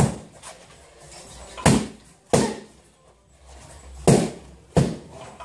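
Boxing gloves landing punches: five sharp smacks at uneven intervals.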